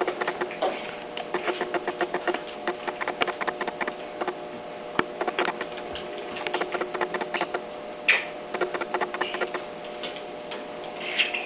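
A baby eating: rapid, irregular mouth clicks and smacks, several a second, over a steady hum.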